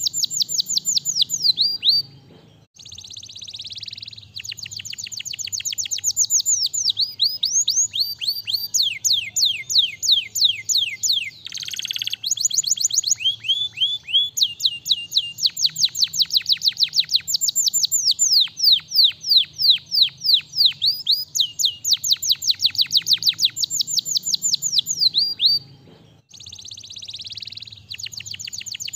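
Domestic canary singing a long song of rolling trills, runs of quick, high, falling notes repeated several times a second, with brief pauses about two and a half seconds in and again near the end.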